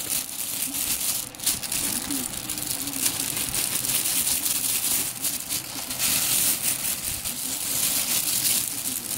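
Thin clear plastic bag crinkling and rustling continuously as it is handled and pulled open from around a football helmet, with many small sharp crackles.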